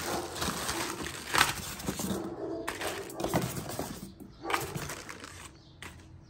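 Crinkling and rustling of plastic bags around bundled cables and a power adapter as they are handled, with polystyrene foam packaging shifting and a few sharper crackles.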